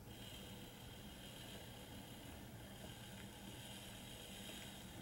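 HO scale battery-powered (dead rail) switcher locomotive running along the track with no sound decoder, so only its own mechanism is heard: a faint, steady high whine from the motor and gearing over a low hum.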